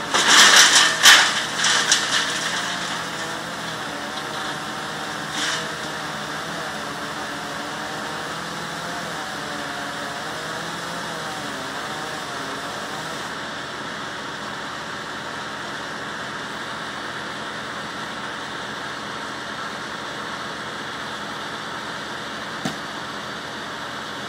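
An engine running steadily, its pitch wavering slightly. Loud crashing noise fills the first few seconds, with a shorter crash a few seconds later and a single sharp click near the end.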